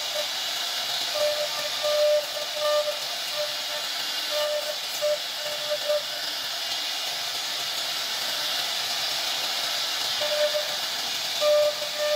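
CNC router spindle running as its carving bit cuts a relief pattern into a wood panel: a steady high hiss, with a pitched tone that comes and goes in short stretches as the bit works through the wood.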